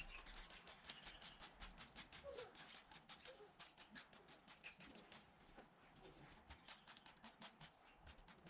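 Near silence, with faint rapid clicking at about five clicks a second.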